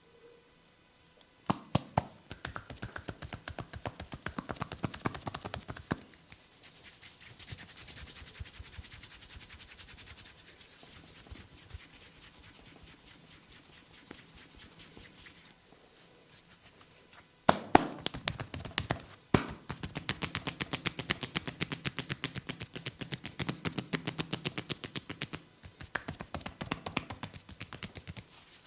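Hands tapping rapidly on a man's head during an Indian barber head massage, in quick rattling bursts; in the middle the tapping gives way to fingertips scratching through the hair, then the loud rapid tapping returns.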